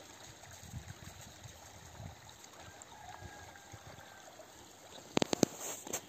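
Snowmelt floodwater running as a stream, a faint steady wash of water. A few sharp knocks a little after five seconds in.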